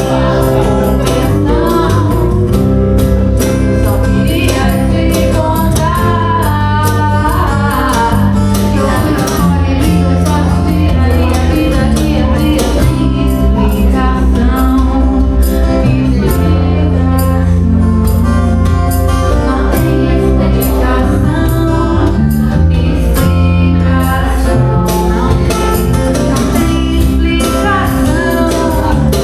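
A band playing a song with a steady beat, bass and guitar, with some singing over it.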